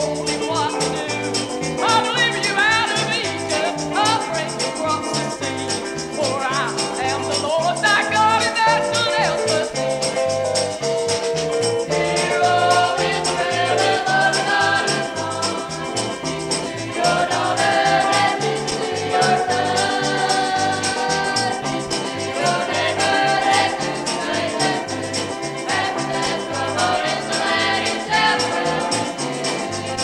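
Gospel song playing from a cassette tape recording: singing with vibrato over instrumental backing, with a bass line repeating steadily underneath.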